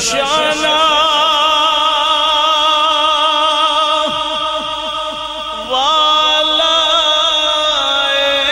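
A man singing a Punjabi devotional kalam, holding long drawn-out notes with a heavy vibrato. About six seconds in, his voice climbs to a higher note and holds it.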